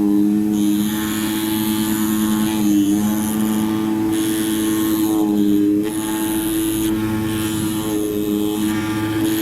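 CNC oscillating knife cutting machine running, a steady motor whine with a haze of high noise, its pitch dipping briefly about every two and a half seconds.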